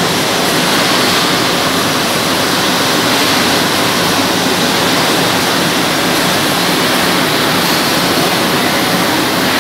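Steady, loud rushing noise of a running poultry processing line as the shackled birds pass along the overhead conveyor.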